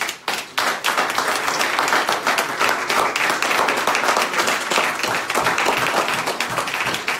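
Small congregation applauding: a few separate claps at first, then dense, steady hand-clapping from about half a second in.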